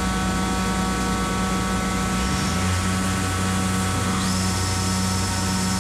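Weinig moulder-planer running: a loud, steady machine hum with several whining tones. About four seconds in, a high whine rises and levels off as another motor comes up to speed.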